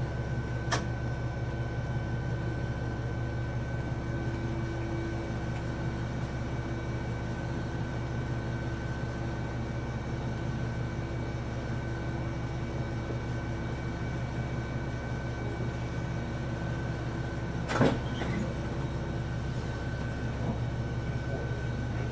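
Steady running hum of a diesel railcar heard from inside the train, with a few constant tones over a low drone. There is a light click near the start and a single louder knock about 18 seconds in.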